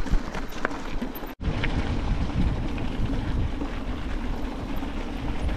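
Steady rumble of wind on the microphone while riding an electric mountain bike down rough trail, with a few knocks in the first second and a brief dropout about a second and a half in.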